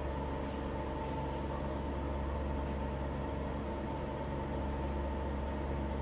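A steady low mechanical hum, like a motor running, with a few faint rustles as dry hay is handled.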